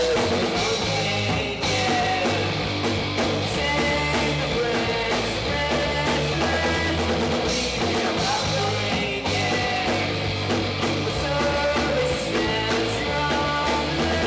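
Rock music with drums and guitar, playing steadily.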